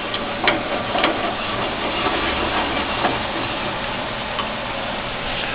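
7" x 12" metal-cutting band saw running with its coolant pump operating: a steady mechanical whirr, with a few light clicks in the first three seconds.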